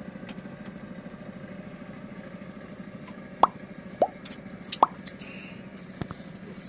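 Three quick rising 'bloop' pops from a subscribe-button overlay animation, followed by a few sharp mouse-click effects, over a steady low motor hum.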